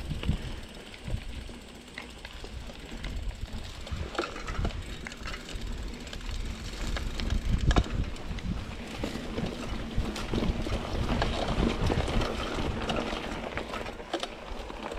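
Hardtail mountain bike (Trek Marlin 7) ridden along a dirt trail: tyres rolling over dirt and roots with a continuous rough rumble, broken by frequent irregular knocks and rattles from the bike over bumps.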